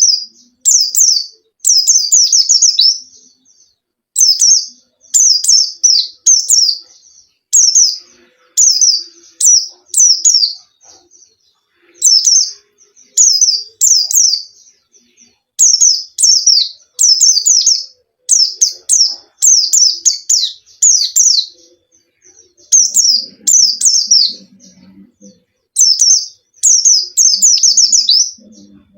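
A white-eye (pleci) singing in full, vigorous song: quick clusters of two to five high, downward-sweeping chirps, repeated about once a second with short pauses between.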